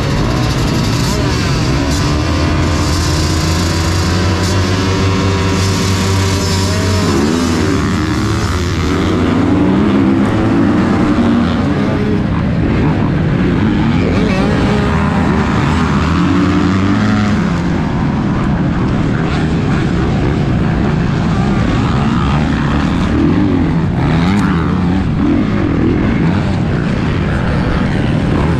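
Motocross dirt bike engine under race load, revving up and down again and again as it is throttled and shifted around the track.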